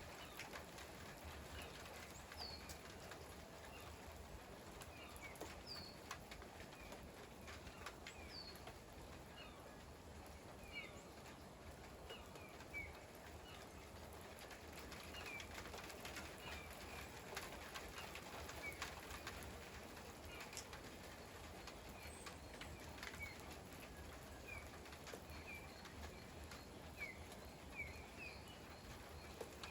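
Faint steady rain with scattered drips, and short high bird chirps every second or two.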